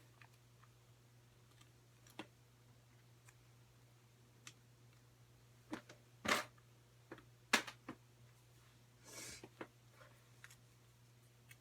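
Scattered clicks and taps of small objects being handled, the loudest about six and seven and a half seconds in, with a short rustle a little after nine seconds, over a steady low hum.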